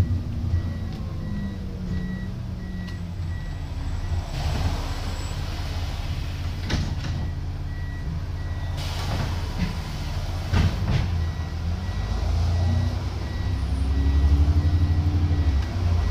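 Diesel engine of a Plaxton President double-deck bus heard from inside, running at low revs, with hisses of air about four seconds in and again around nine to eleven seconds, then the engine note rises and grows louder over the last few seconds as the bus pulls away.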